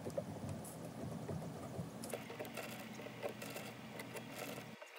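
Faint handling noise: soft clicks and light rubbing as steel frame rods and 3D-printed plastic stator spacers are fitted together by hand.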